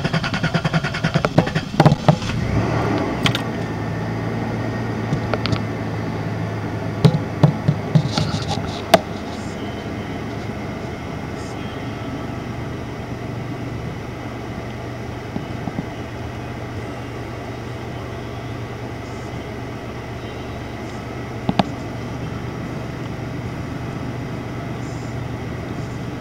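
Toyota Tacoma V6 finishing a long crank on the starter, catching about two seconds in and settling into a steady idle, with a few sharp clicks along the way. The extended cranking is the hard-starting problem after heat soak that followed the engine swap.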